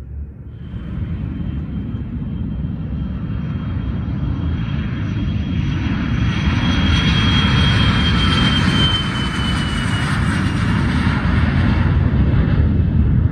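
Cessna Citation X's twin Rolls-Royce AE 3007 turbofan jet engines at takeoff power as the jet accelerates down the runway past. A high whine starts about half a second in over a steady rumble and grows louder. Late on, the whine drops slightly in pitch as the jet goes by.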